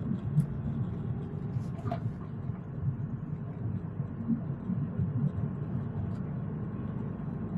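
Steady low rumble of road noise inside a moving car, with a couple of faint clicks in the first two seconds.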